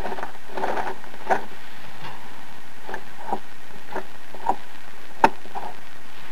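Worn rear tub bearing of a Maytag Neptune front-load washer being turned by a finger, giving a scatter of irregular sharp clicks and ticks over a steady hiss; the bearing has failed and is being replaced.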